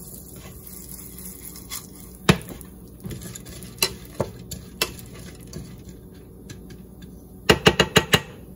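Wooden slotted spatula stirring raw pumpkin seeds (pepitas) around a ceramic skillet, with a few separate knocks and scrapes and a quick run of about six louder taps near the end. A faint sizzle of the seeds in warm oil sits underneath.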